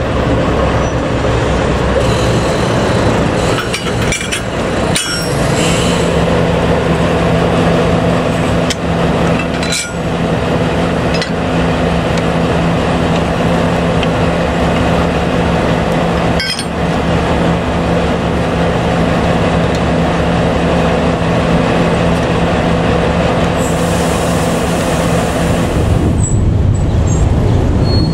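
DSA273 diesel shunting locomotive idling close by with a steady engine hum as it buffers up to a carriage, with sharp metal clanks of the buffers and chain coupling at a few moments. A hiss of air for a couple of seconds near the end.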